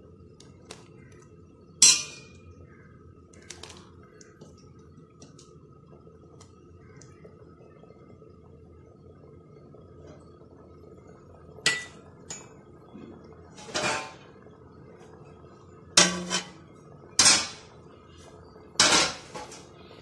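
Metal utensils clinking and clanking against a metal cooking pot: about six sharp strikes, one about two seconds in and the rest in the last nine seconds. A steady low hum runs underneath.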